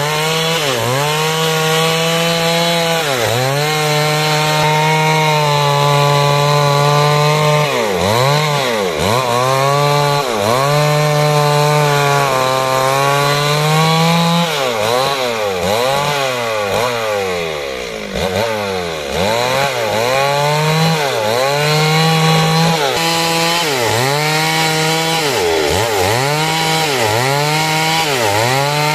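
Two-stroke chainsaw cutting through timber, the engine held at high revs and dipping sharply many times before picking up again. About halfway through it drops to a low pitch for a few seconds, then revs back up.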